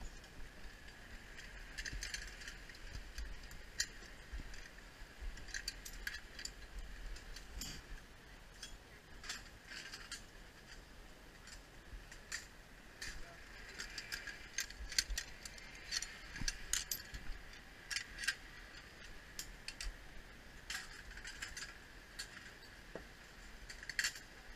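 Metal carabiners and zipline harness hardware clinking and jangling in scattered, irregular clicks.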